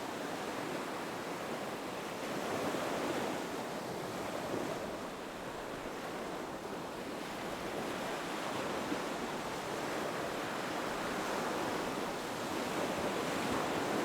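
Ocean surf washing onto a beach: a continuous rush of waves that swells and eases gently every few seconds.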